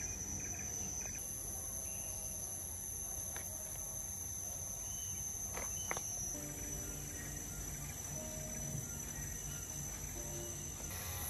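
Steady, high-pitched drone of forest insects.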